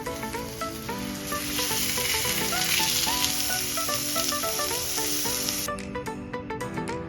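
Food sizzling in a hot frying pan, starting about a second in and cutting off suddenly near the end, under background music of plucked notes.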